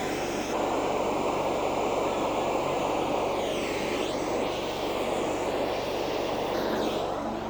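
Steady roar of a gas torch flame heating steel bar, with three sweeping whooshes rising and falling in it.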